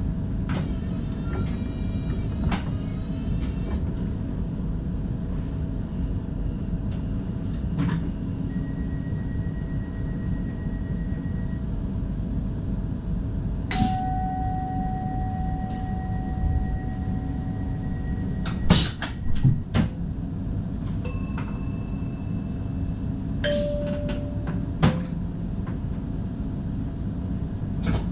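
Cab noise of an NS DDZ double-deck intercity train running along the line: a steady low rumble, with scattered sharp clicks and knocks, a loud cluster of them about two-thirds of the way through, and a few short ringing tones.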